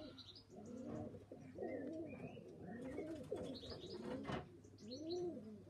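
Pigeons cooing, a run of overlapping low coos that each rise and fall in pitch, with small birds chirping faintly above them.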